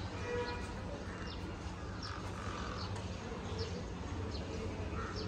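Birds chirping outdoors, short high calls repeating about every half second, over a steady low hum.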